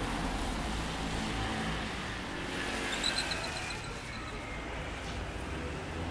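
Steady rush of road traffic, with a quick run of high, fading pings about three seconds in.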